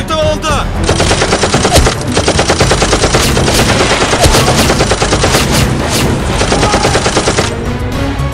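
Machine-gun fire: a long stretch of rapid automatic shots that starts about a second in and stops shortly before the end.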